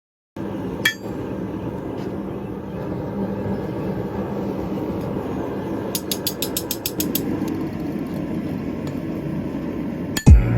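Forge running with a steady, low, noisy rush, broken by a single click about a second in and a quick run of evenly spaced clicks, about a dozen in a second, around two thirds of the way through. Music begins just before the end.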